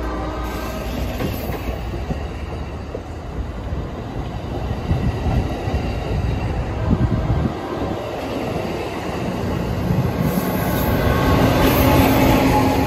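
Pacific Surfliner passenger train rolling past at close range, bilevel coaches rumbling with a run of wheel clicks over the rails. Near the end the Siemens Charger diesel locomotive passes, its engine drone rising to the loudest point.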